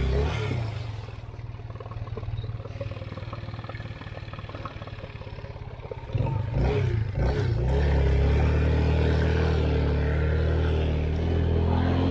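All-wheel-drive off-road motorcycle's engine: the revs drop about a second in and it runs lower and quieter for several seconds. About six seconds in it revs up sharply, then keeps running steadily at higher revs.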